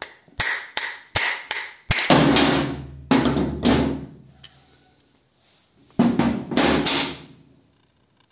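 Hammer blows on a steel drift punch driving the spindle out of a 1991 Soviet pneumatic drill: a run of sharp metallic strikes, some ringing on, in two groups with a pause of about two seconds between them.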